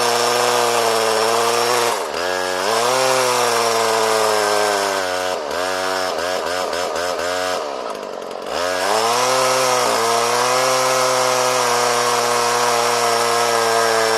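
Homelite Super 2 26 cc two-stroke chainsaw running near full throttle while cutting wood. Its pitch dips about two seconds in, drops in a quick run of short dips around the middle, and sags deeply for about a second before climbing back to a steady high note.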